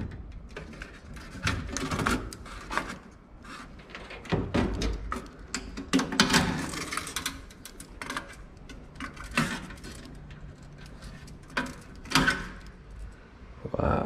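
Irregular clicks, knocks and rustles of hands pulling wire connectors off a furnace control board and handling the board.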